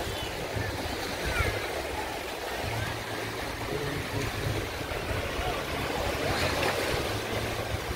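Shallow seawater lapping and sloshing as someone wades through it, with uneven low wind buffeting on the microphone.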